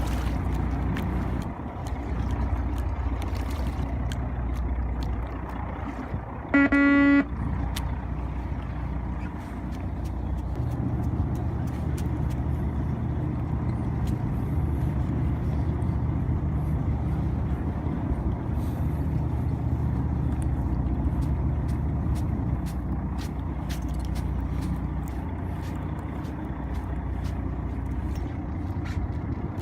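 Fishing boat's engine running steadily, with one short horn blast about six and a half seconds in.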